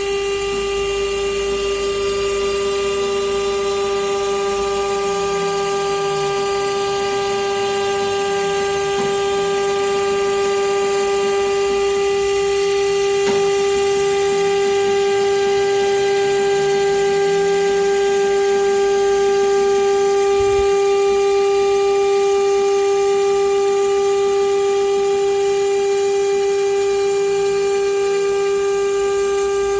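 Stone CNC machine's spindle running with a steady, unbroken whine.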